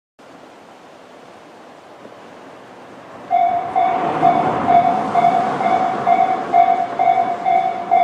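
Electronic railway level-crossing alarm of the Tobu 'sound C' type starting up about three seconds in: a ringing electronic tone repeating about twice a second, warning that a train is approaching. A rushing noise swells beneath it for a couple of seconds.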